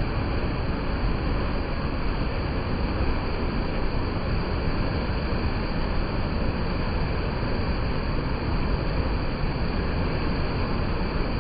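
Mountain stream rushing steadily over rocks, an even, unbroken wash of water noise that is strongest in the low end.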